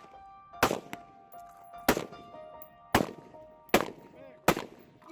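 Five gunshots, about a second apart, with music playing underneath.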